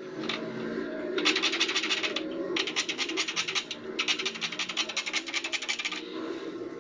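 Plastic windshield cowl panel of a Nissan scraping and creaking against the windshield glass as it is worked back and forth, in three bouts of quick, rapid scratchy strokes. The cowl rides on clips with no seal, so bare plastic rubs directly on the glass: the cause of the squeak under the windshield.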